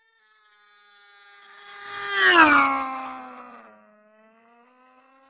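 A drawn-out man's wail, edited to sweep past like a Formula 1 car. It swells in volume, drops sharply in pitch at its loudest about two seconds in, and then fades away.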